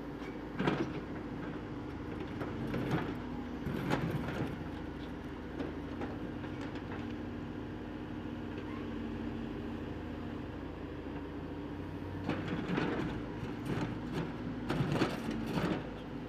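Caterpillar 422F backhoe loader's diesel engine running steadily while its backhoe bucket digs into concrete rubble, with bursts of rocks scraping and clattering against the bucket about a second in, twice around three to four seconds, and repeatedly near the end.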